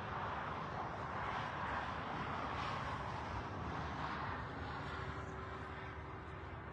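A vehicle passing on the road: a rush of tyre and road noise that swells over the first few seconds and fades away.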